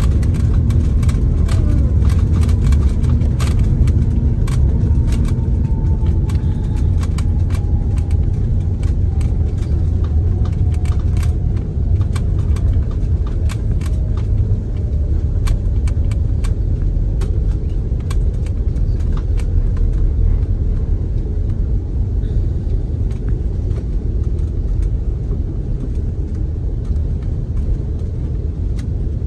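Jet airliner's landing rollout heard from inside the cabin: a heavy steady rumble of wheels and engines that eases gradually as the plane slows on the runway with its ground spoilers raised. Rattling clicks come through the first half, and an engine whine falls slowly in pitch as the engines spool down.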